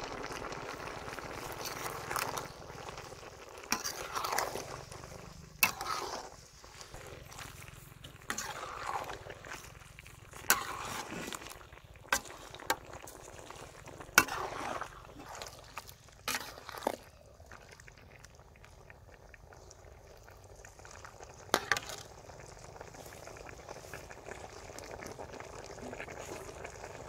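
Catfish and greens simmering in a steel wok, the liquid bubbling, while a utensil stirs them in and knocks sharply against the pan about a dozen times; the knocking stops about two-thirds of the way through and only the simmering carries on.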